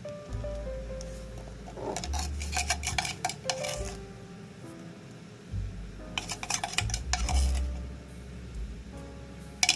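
Kitchen utensils clinking and scraping against dishes in two bursts of rapid clicks, over background music.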